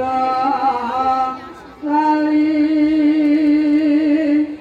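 A solo voice singing long held notes of a Javanese song: a first phrase with a slight wavering ornament, a short break, then one long steady note that stops suddenly near the end.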